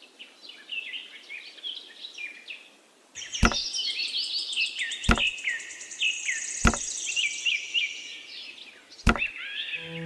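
Four sharp knocks, about a second and a half apart, as miniature brick wall panels are set in place, over continuous bird chirping; a high steady buzz joins from about three seconds in to about eight seconds.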